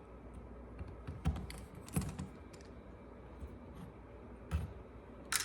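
A few scattered light clicks and taps as small screws and parts of a less-lethal launcher are handled during disassembly.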